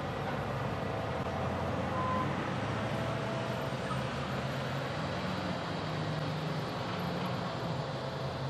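Front-load garbage truck's diesel engine running steadily as the truck manoeuvres back and forth at a dumpster, rising a little in pitch about halfway through.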